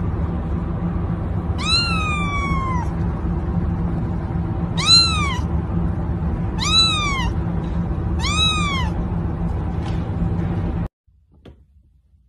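Kitten meowing four times in high, thin calls, each arching up and falling away, the first one longer and trailing down, over a steady low background hum.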